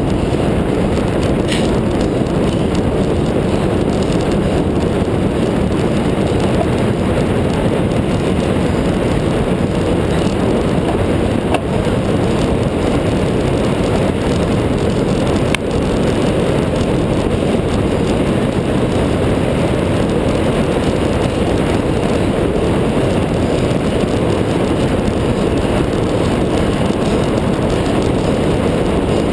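Steady rush of wind over the microphone of a handlebar-mounted camera on a moving road bike, with a couple of brief clicks about twelve and sixteen seconds in.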